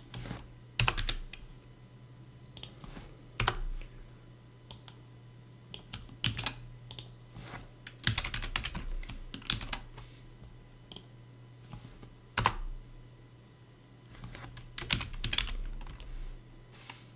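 Typing on a computer keyboard: irregular key clicks in short runs with pauses between, a few strokes louder than the rest.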